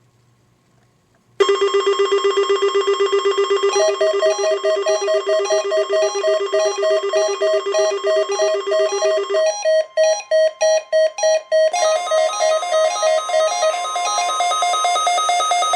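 Alert Works EAR-10 weather radio's built-in alert alarm going off as it receives an alert: loud, rapidly pulsing electronic beeps that come in suddenly about a second and a half in. The beeps shift to an alternating two-pitch pattern, stutter briefly, and change pattern again, with a faint steady tone underneath.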